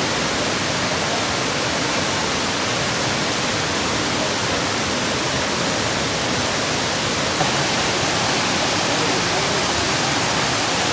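Manthokha Waterfall's falling water, a steady, even rush that does not change.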